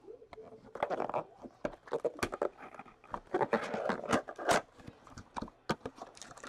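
Cellophane wrapper crinkling and a cardboard trading-card box being handled and its lid flap opened: an irregular run of crackles and small clicks.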